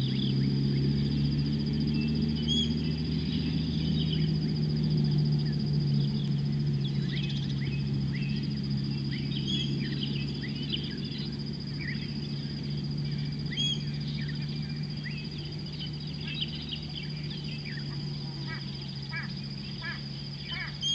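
Bush ambience: many birds chirping and calling, with the calls coming thicker and more repeated near the end, over a steady high insect buzz and a steady low hum.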